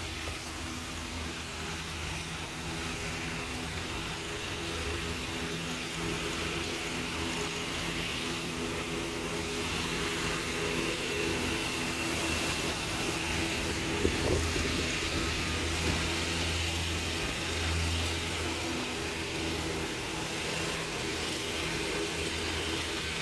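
A steady low motor hum over an even hiss, with a single sharp knock about fourteen seconds in.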